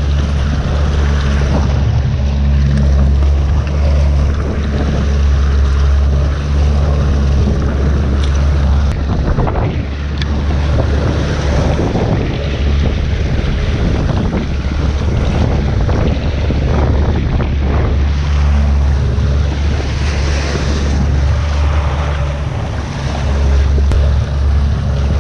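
A 90 hp Evinrude E-TEC two-stroke outboard running steadily under way, with waves slapping the hull and wind buffeting the microphone in rough seas.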